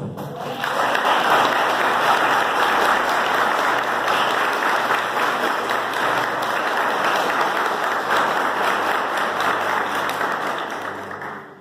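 Church congregation applauding in praise, a dense steady clapping that builds in the first moment and fades away near the end.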